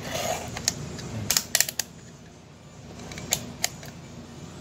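Rotary range selector dial of a digital multimeter being turned to the 750 V range, clicking through its detents: a few sharp clicks, with a quick cluster about a second and a half in and two more a little after three seconds.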